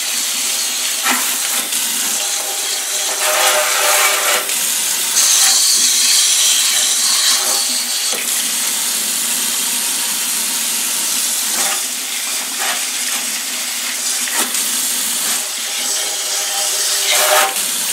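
A kitchen sink's pull-out sprayer sends a fairly weak stream of water onto the metal fins of a CPU tower heatsink, a steady splashing hiss that changes in tone as the heatsink is turned under the stream.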